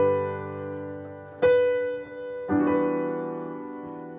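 Slow piano chords on a Nord Stage 3 stage piano: three chords struck, at the start, about a second and a half in and about two and a half seconds in, each held and left to ring and fade, the last an E minor ninth chord.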